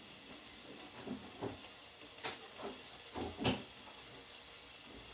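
Steady low hiss of food sizzling in a frying pan on the stove, with several soft knocks and clunks between about one and three and a half seconds in.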